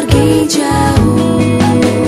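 Background music with a steady beat over sustained instrumental notes.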